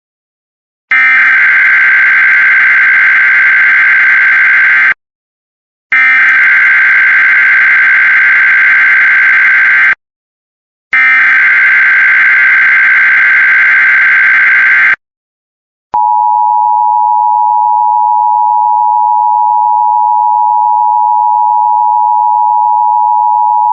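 Emergency Alert System SAME header: three bursts of digital data tones, each about four seconds long with a second's pause between them. About 16 seconds in, the steady two-tone EAS attention signal follows. Together they open a Child Abduction Emergency (Amber Alert).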